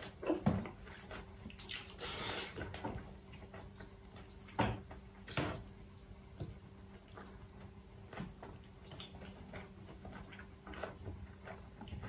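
Eating close to the microphone: chewing and mouth noises, with scattered clicks and a few sharp cracks and snaps as food is picked apart and eaten by hand, over a faint steady hum.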